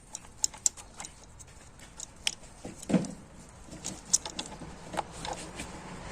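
Scattered sharp clicks and light taps of small metal parts and hand tools being handled, with a duller knock about three seconds in.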